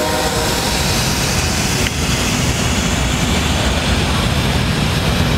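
Freight train passing close by: BNSF diesel locomotives running past, followed by double-stack container well cars, giving a loud, steady rumble of engines and wheels on rail. The horn's last note cuts off right at the start.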